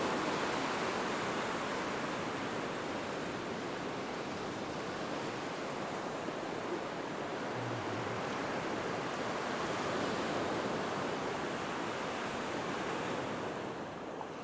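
Ocean surf breaking and washing up a sandy beach in a steady wash, dropping a little in level near the end.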